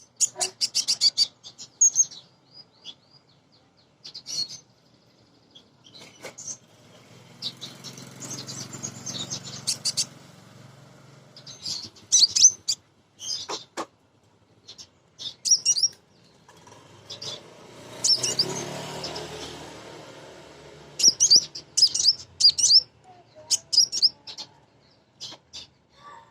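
Female sunbird (kolibri ninja) giving short, high chirps and quick chattering calls in scattered bursts. Twice a softer, longer rustling noise swells and fades, around a third and again about two-thirds of the way through.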